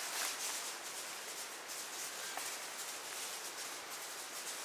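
Steady outdoor rustling hiss, strongest high up and flickering unevenly, with no clear single event.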